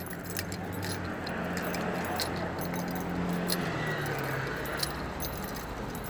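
Steady background noise with a low hum and a few faint clicks, without speech.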